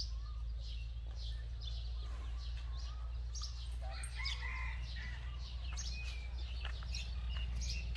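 Small birds chirping over and over in short high calls, with a few lower calls around the middle. A steady low hum runs underneath.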